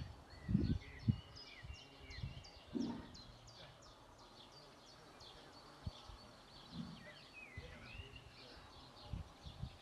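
Small songbirds chirping and singing in the background: a quick run of short high chirps with a few warbled phrases, one rising and falling near the end. Scattered low thumps sound now and then underneath.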